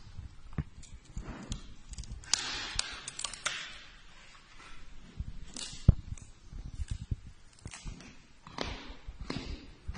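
Giant panda chewing bamboo close to the phone: irregular crunching and cracking with rustling, one loud crack about six seconds in, mixed with a hand rubbing its fur.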